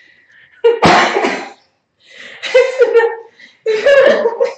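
A person coughing in three bouts, each starting sharply, apparently at the strong perfume on a newly unboxed costume.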